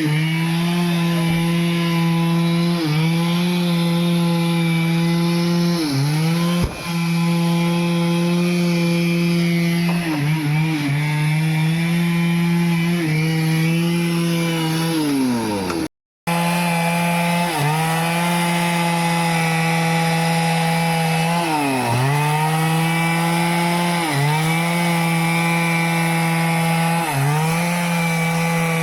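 Stihl two-stroke chainsaw running at high speed and cutting wood, its pitch sagging briefly each time the chain bites in under load and then climbing back. About halfway through the engine note falls away and the sound cuts off for a moment, then returns at full speed.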